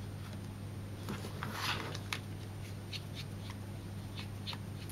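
Small screwdriver turning tiny screws out of a plastic drone motor mount: scattered faint clicks and a short scraping squeak about a second and a half in, over a steady low hum.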